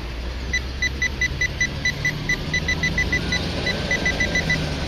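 Metal detector pinpointer beeping rapidly, about five short beeps a second at one pitch, as it is held over the target in the dug soil. The beeping starts about half a second in and stops just before the end.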